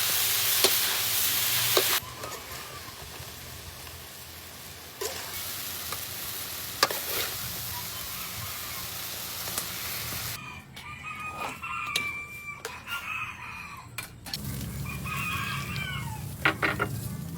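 Food sizzling in a frying pan with scraping stirs, loud for the first two seconds and then quieter. From about ten seconds in, chickens cluck and call.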